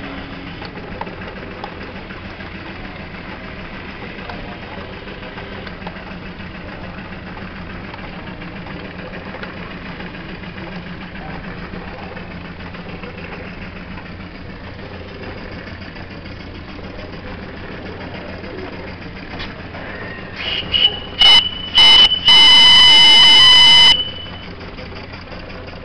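Steady running hum of a toy steam engine driving model machine-shop line shafting. About twenty seconds in, its small steam whistle gives several short toots and then one long shrill blast of about a second and a half, by far the loudest sound.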